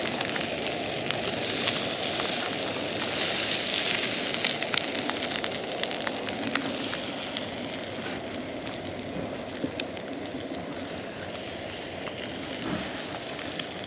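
Scrambled eggs sizzling and crackling in a non-stick frying pan over a gas cartridge stove as a spatula stirs them. The crackling thins out somewhat in the second half.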